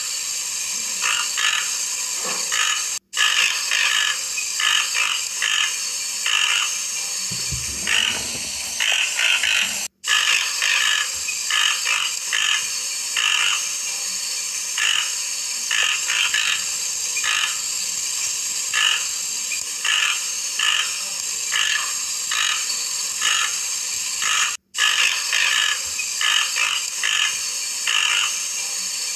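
Toco toucan calling: a long run of short, rough calls repeated about two or three times a second, over a steady high hiss. The sound breaks off for an instant three times.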